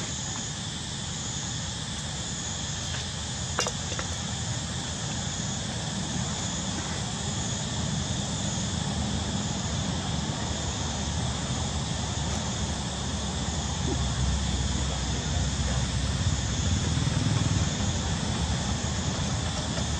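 Steady outdoor background noise: a low rumble that grows louder in the second half, under a steady high hiss, with one faint click a few seconds in.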